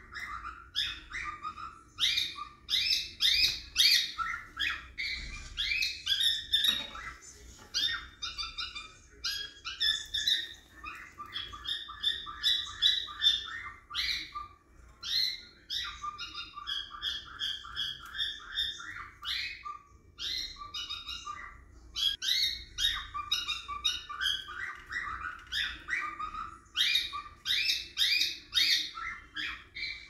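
Pet cockatiels chirping almost without pause, in rapid runs of short, high chirps.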